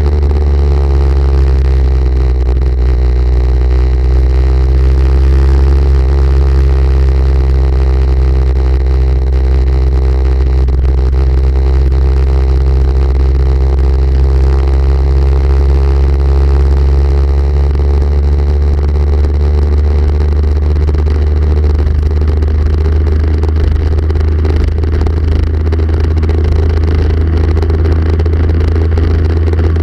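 Motorcycle engine running at steady cruising revs, holding one low note, with wind rushing over the microphone.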